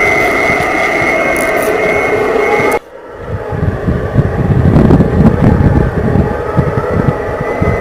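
Storm wind buffeting the microphone as low, gusty rumbling that surges and fades, starting after an abrupt cut about three seconds in. Before the cut, a steady noise with a held hum.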